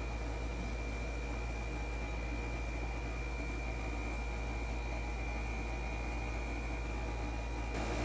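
Residential air-conditioner condensing unit running steadily: a deep compressor hum under fan noise, with a faint steady high whine. The compressor is staying on and not cutting out, a sign that the refrigerant charge is now above the low-pressure threshold.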